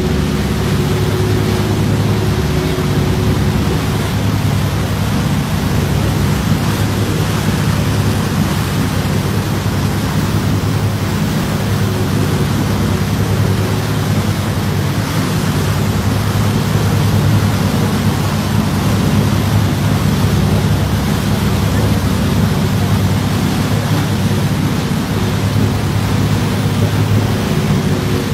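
Tour boat's engine running steadily, a low hum beneath a constant rush of wind and churning water from the wake.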